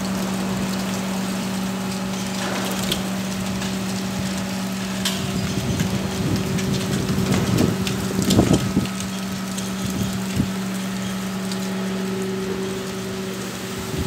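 Strong wind buffeting and crackling on a phone microphone, with gusts swelling about halfway through. A steady low hum runs underneath.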